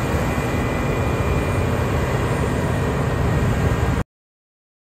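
Claas Lexion 8000 combine harvester running steadily as it cuts the field, a constant heavy machine drone that cuts off suddenly about four seconds in.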